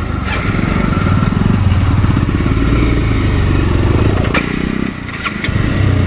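Honda Hornet single-cylinder motorcycle engine pulling away from a stop and accelerating. The engine note dips briefly about five seconds in, as at a gear change.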